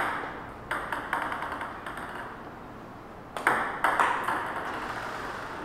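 Table tennis ball clicking off the paddles and table in a rally: a quick run of three hits, a gap of about two seconds, then a couple more hits, each ringing briefly in the room.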